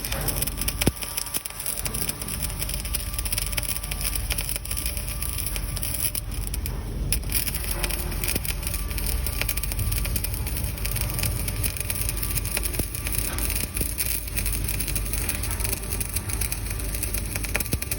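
Electric arc welding a vertical (3G) joint: the arc gives a steady, dense crackle with fine sputtering clicks.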